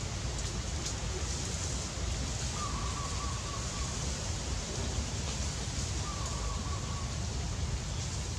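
Steady outdoor background noise with a low rumble. Two short, high whistled notes stand out, one about two and a half seconds in and one about six seconds in.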